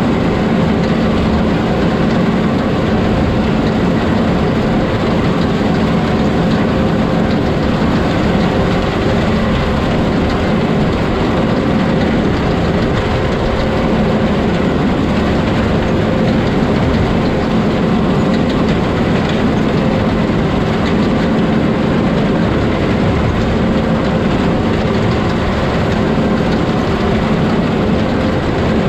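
John Deere 9500 combine running steadily while harvesting soybeans: a constant heavy drone of diesel engine and threshing machinery, with a few steady hums held throughout.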